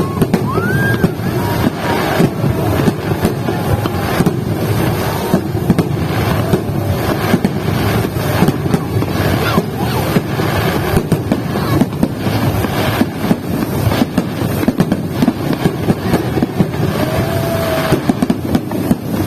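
Fireworks display: a dense, continuous run of bangs and crackles, with a short rising whistle about a second in.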